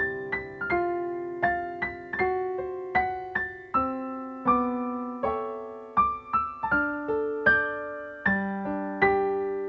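Background piano music: single notes and chords struck at an even pace and left to ring and fade.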